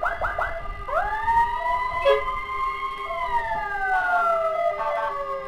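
Electronic emergency-vehicle siren: three quick chirps, then a long wail that rises about a second in, holds, and glides slowly down. A motorcycle engine runs low underneath.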